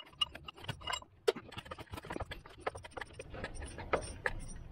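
Scattered light clicks and taps of metal parts being handled as the engine fan clutch is worked off its shaft.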